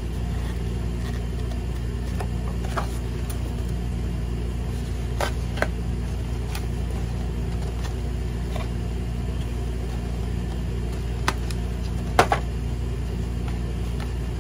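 Steady low hum with a few short light clicks and taps as foam board and printed paper are handled, the loudest pair about twelve seconds in.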